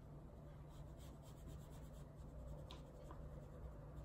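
Oil pastel rubbing on sketchbook paper in short, repeated strokes as a sky is coloured in; faint.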